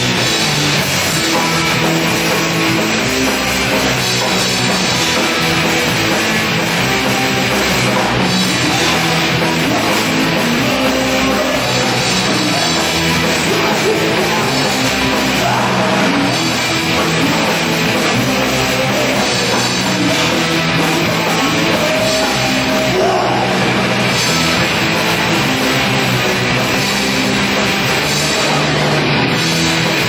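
Live rock band playing loud, with drum kit and amplified guitars.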